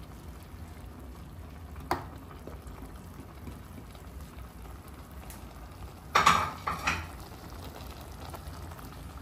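A pan of tomato, pepper and ham sauce sizzling and bubbling steadily as it sautés. A utensil clicks against the pan about two seconds in, and a louder clatter of the spoon against the pan comes around six seconds in.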